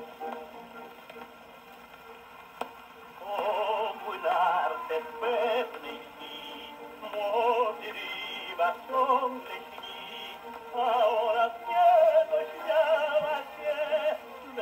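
A man singing with vibrato to salon-orchestra accompaniment, played from a 78 rpm shellac record on a hand-cranked portable gramophone. The sound is thin, with no deep bass and no treble. The voice comes in about three seconds in, after a short quieter stretch.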